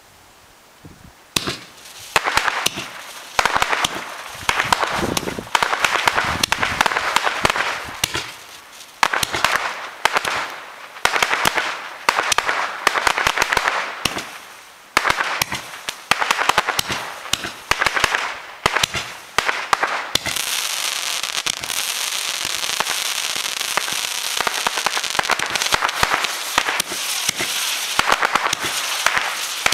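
Sky Lab 25-shot firework cake firing after a single ignition. About a second in, the shots begin, roughly one a second, each a sharp burst followed by crackling. About two-thirds of the way through, the shots run together into one unbroken crackle.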